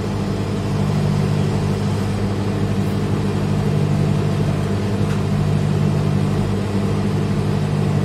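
Gold Line countertop microwave oven running at medium power: a steady electrical hum with the whir of its fan.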